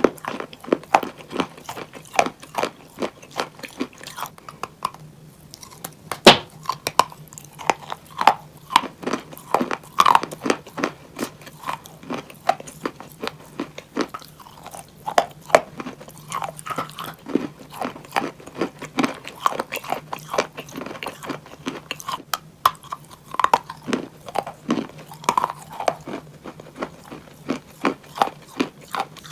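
Close-up biting and chewing of chalk bowls: a long run of sharp, dry crunches, one after another, over a faint steady hum.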